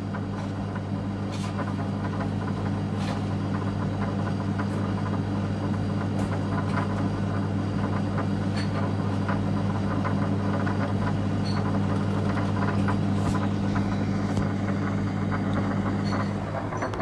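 A steady low mechanical hum with a dense rattle over it and a few faint clicks; part of the hum drops away near the end.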